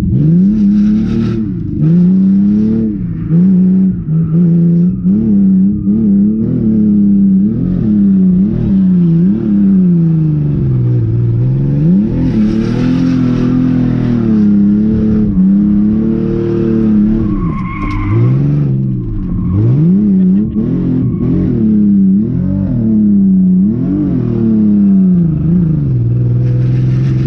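Ford XR6's 4.0-litre Barra inline-six, which has a rod knock, being revved hard and let off again and again, its pitch rising and falling every second or two, with tyre squeal at times.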